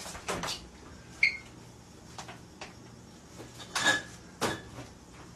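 A few short knocks and clatters, with a brief high squeak about a second in and the loudest clatters about four seconds in.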